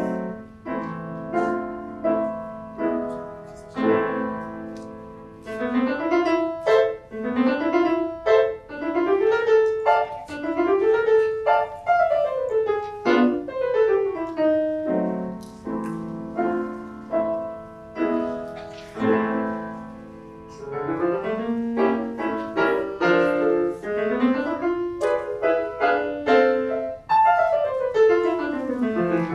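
Solo piano played on a Yamaha grand: quick runs of notes sweeping up and down over held bass notes. It eases off for a moment about two-thirds of the way through, then builds again.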